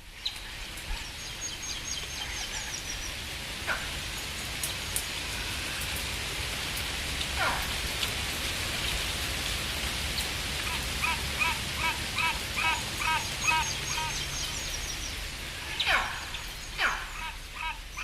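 Forest ambience: a steady hiss with several small birds calling over it. A quick run of repeated chirps, about three a second, starts about two-thirds of the way through and comes back near the end, and a few downward-sliding whistles are heard between them.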